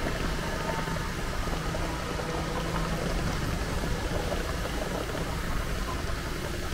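Steady city street noise: a continuous hiss with a low traffic hum beneath it.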